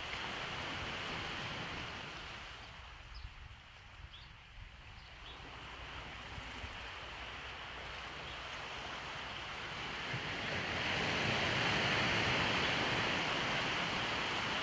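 Small waves washing onto a beach, a steady rushing surf that fades a few seconds in, then swells to its loudest about two-thirds of the way through.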